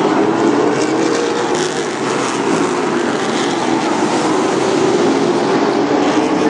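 Late model stock cars' V8 engines running hard at race speed as the pack goes through the turn, a steady loud engine drone.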